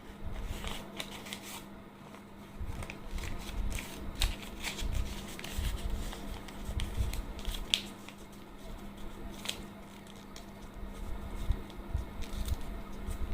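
Silicone pop-it fidget toy being pressed, giving many quick irregular pops and clicks along with rubbery handling noise. A faint steady hum runs underneath.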